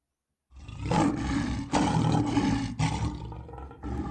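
Lion roaring: starting about half a second in, a run of loud, deep, rough roars, each about a second long.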